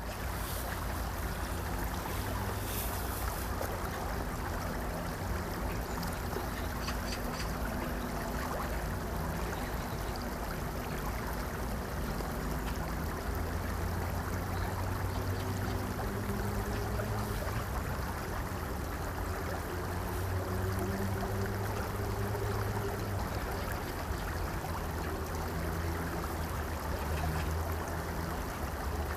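Shallow stream running over a rocky bed, a steady rush of flowing water, over a low continuous hum.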